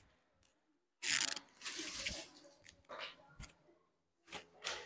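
Paper rustling and handling noise at a desk, in short scratchy bursts, with a dull knock about three and a half seconds in.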